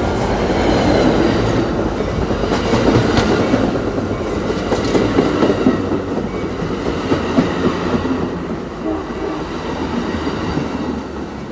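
Amtrak San Joaquin bilevel passenger cars rolling past at close range: a steady rumble of wheels on rail with scattered sharp clacks, easing off near the end.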